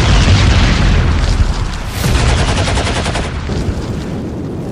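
Battle sound effects: rapid automatic gunfire over deep explosion booms, loudest in the first second and a half and easing off toward the end.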